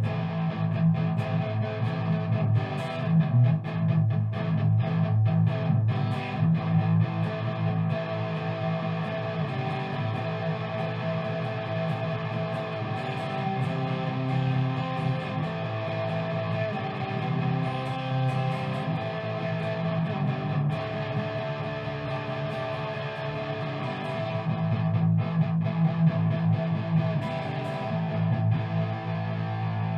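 Background music: a rock or blues track led by distorted electric guitar, with a steady beat.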